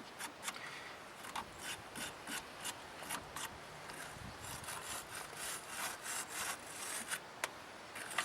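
Wire brush of a battery terminal cleaner scrubbing a battery cable clamp to clear corrosion, in quick, irregular back-and-forth scraping strokes.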